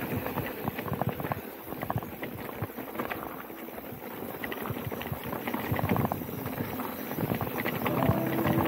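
Specialized Turbo Levo Gen 3 electric mountain bike rolling over dirt singletrack: tyre noise with a run of irregular knocks and clicks as the bike rattles over the trail. A steady whine comes in near the end.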